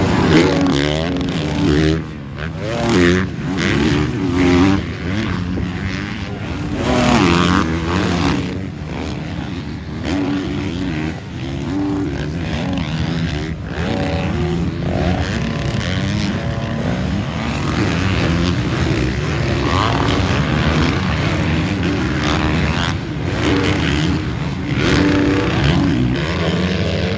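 Motocross dirt bikes racing, their engines revving up and easing off again and again as riders accelerate, shift and roll off the throttle.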